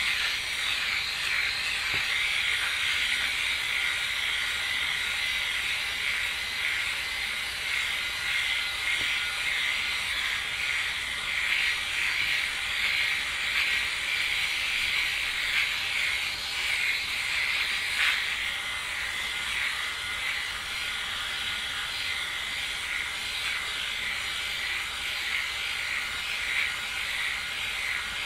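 Flawless Legs electric leg shaver running, a steady high-pitched buzz as it is glided over the skin of a leg, with one brief click a little past the middle.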